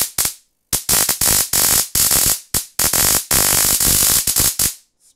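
High-voltage sparks from a home-built coil and spark-gap rig firing in loud bursts that cut in and out about eight times, with short silent gaps. The gap is tuned to only just fire near peak voltage, so the arc struggles and misses occasionally.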